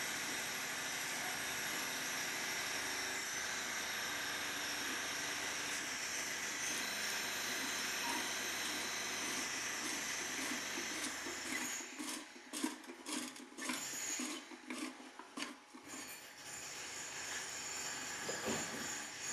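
Steady hiss, then from about twelve seconds in a run of sharp metallic clicks and scrapes as a new wick is worked down into the wick tube of a Valor Laurel paraffin heater.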